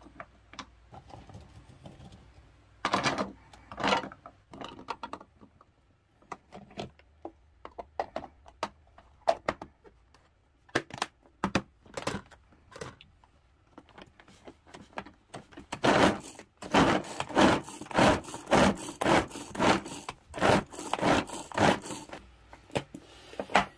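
Pull-cord manual food chopper mincing garlic cloves: a quick run of repeated cord pulls, about two a second, in the last third, each a short loud rattling stroke as the blades spin through the garlic. Before that, scattered clicks and knocks of the plastic bowl, blade and lid being fitted together.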